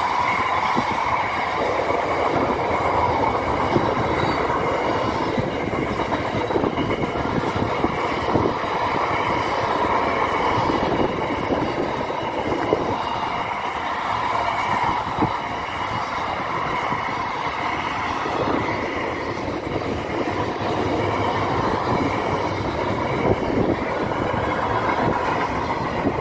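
Double-stack container freight train rolling past: a steady rumble of wagon wheels on the rails, with a high ringing tone running through it and scattered sharp clacks as wheels cross rail joints.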